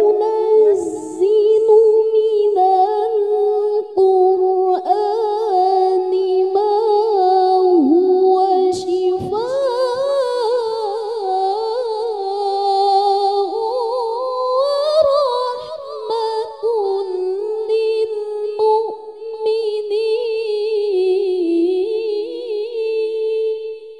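A young woman's unaccompanied voice reciting the Qur'an in melodic tilawah style into a close microphone: long, held, ornamented notes, climbing higher in the middle of the phrase and settling back down, with the phrase fading out at the very end.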